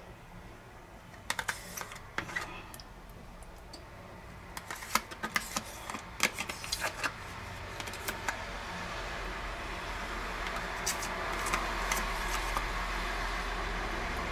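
Metal spoon scraping cream cheese out of a plastic tub and knocking against the tub and the rim of a steel pot: a scatter of sharp clicks and taps, then stirring in the pot. From about eight seconds in, a steady hiss builds and grows louder.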